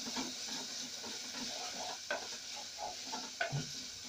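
Beef frying in a browned spice paste in an aluminium pot, sizzling steadily, while a wooden spoon stirs and scrapes the pot with small irregular knocks.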